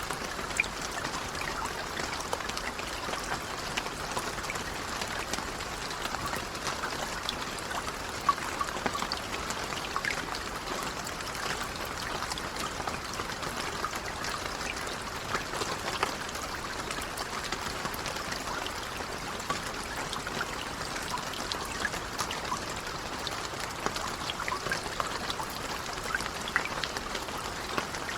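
Steady, gentle rain with many scattered individual drops pattering and a light trickle of water.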